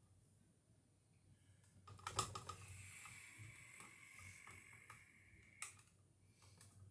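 Light clicks and about three seconds of scraping, hand-tool and parts handling while rewiring an electrical outlet, ending in a sharp click.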